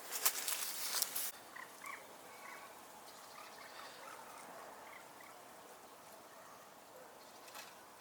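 A second of loud rustling and clicking, then faint short chirps of small birds, with one more click near the end.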